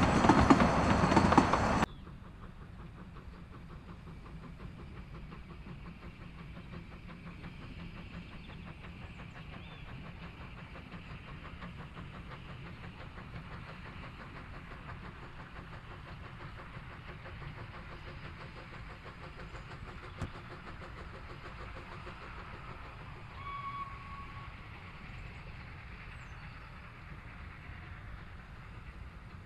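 Narrow-gauge passenger carriages rolling past close by, their wheels clacking over the rails; this cuts off abruptly about two seconds in. After that comes the quieter, steady hiss and rumble of steam locomotives standing at a platform, with a brief faint tone a few seconds before the end.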